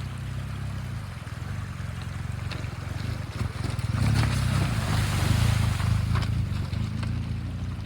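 Motorcycle engine running as the bike rides through a shallow water crossing, getting louder about halfway through along with a rush of splashing water, then easing off near the end.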